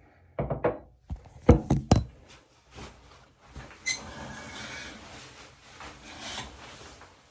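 A handful of sharp knocks and thuds on wood in the first two seconds, followed by a few seconds of rubbing and shuffling in a small, echoey room.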